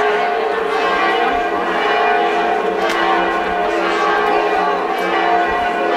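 Church bells ringing continuously, several overlapping tones sustained and blending together.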